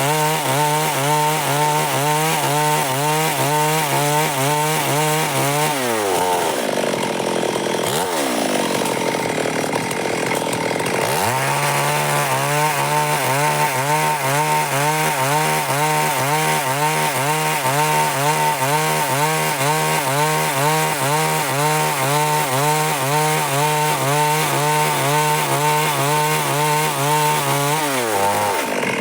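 Stihl MS 382 two-stroke chainsaw cutting through wood at full throttle. The engine note drops about six seconds in, runs lower for a few seconds, revs back up near twelve seconds for a long steady cut, and drops again near the end.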